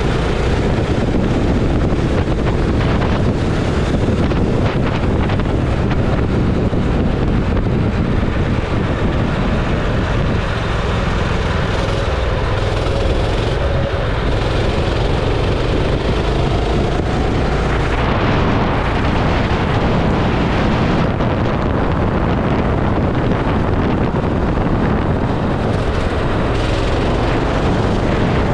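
Go-kart engine running at speed, heard under heavy wind buffeting on the camera microphone. The engine's pitch rises and falls with the throttle through the middle stretch.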